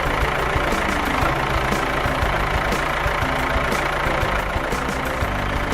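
Cartoon farm tractor's engine sound effect, running steadily.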